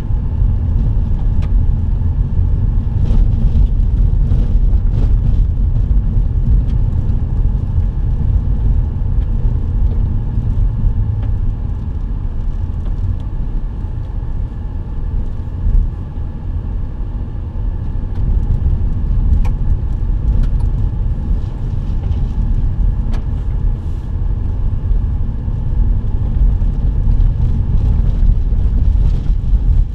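A vehicle driving on a dirt road, heard from inside the cab: a steady low rumble of engine and tyres on gravel, with scattered small clicks and ticks.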